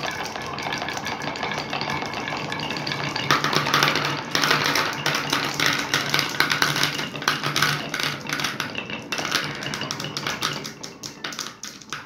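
A stream of glass marbles rolling down grooved wooden marble-run chutes, a continuous rattle with rapid clicks as they knock against the wood and each other. From about three seconds in the clatter grows louder as marbles drop into a small plastic tub, then thins near the end.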